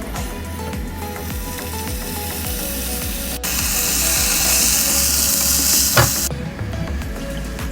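Food sizzling as it fries in hot oil in a pan, under soft background music. The sizzle turns suddenly louder about halfway through, with a single knock, then drops back.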